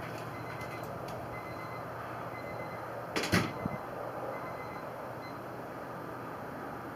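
A door banging shut, a short clatter of a few sharp knocks about three seconds in, over a steady outdoor background hiss.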